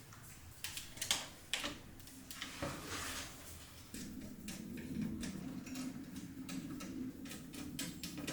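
Irregular light clicks and taps of computer parts being handled and fitted during a PC build, over a faint steady low hum.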